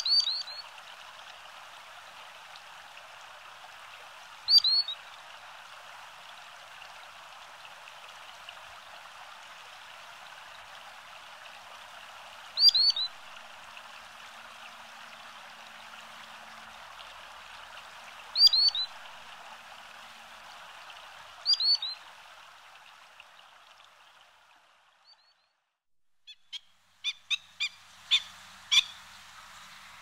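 A bird's short, high calls, each a quick descending whistle of two or three notes, come five times several seconds apart over a steady background hiss. The hiss fades out about 24 seconds in. A couple of seconds later a quick run of sharp, loud calls begins.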